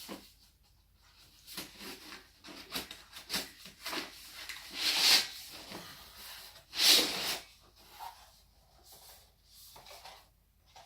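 A parcel's packaging being handled and opened: scattered rustles, scrapes and light knocks, with two louder rustling rips about 5 and 7 seconds in.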